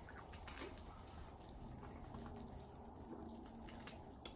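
Faint handling sounds: soft clicks and small wet, sloshing noises as a plastic bottle is twisted and shaken and boiled shrimp are peeled by hand.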